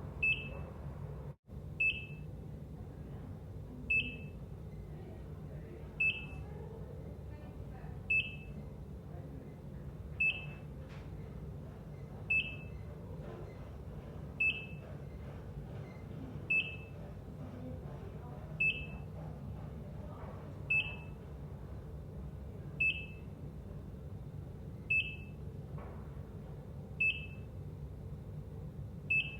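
ECG heart monitor beeping: one short, high beep about every two seconds, evenly spaced, over a steady low hum. The sound cuts out for an instant about a second and a half in.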